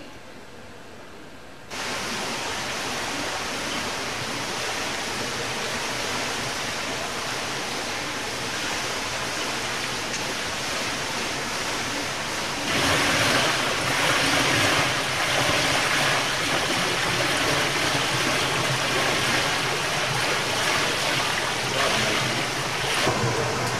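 Water rushing and splashing through a large waterwheel at a water-powered sawmill, a steady noise that starts suddenly a couple of seconds in and gets louder about halfway through.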